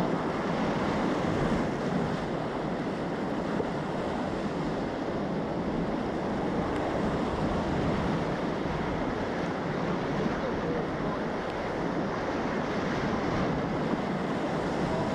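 Whitewater rapids rushing and churning around an inflatable raft, a steady loud wash of creek water.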